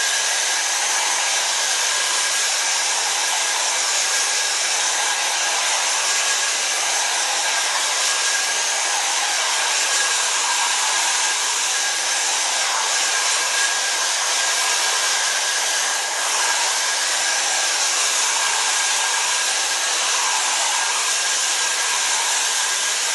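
A hand-held hair dryer running steadily: a constant rush of air with a faint steady whine. It is drying freshly applied clear-coat lacquer on leather.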